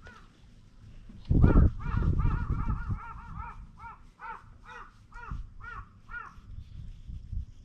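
A bird calling in a series of short, rising-and-falling calls, quick at first, about seven a second, then slowing to about three a second and stopping about six seconds in. A loud low rumble sits on the microphone about a second and a half in.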